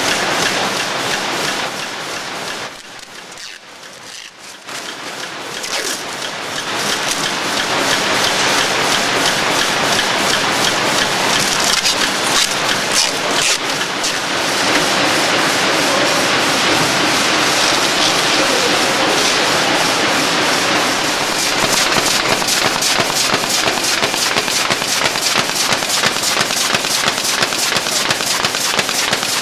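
Carton folder-gluer running at production speed: a loud, steady mechanical clatter of belts, rollers and carton blanks, with a fast even ticking that stands out more in the second half. The noise dips briefly about three seconds in.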